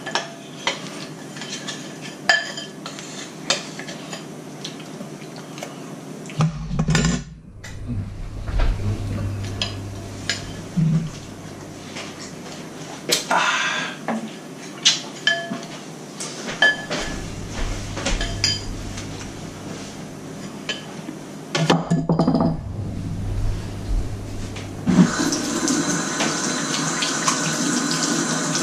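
Dishes and cutlery clinking and knocking with scattered sharp clinks, then water running steadily from a tap from near the end.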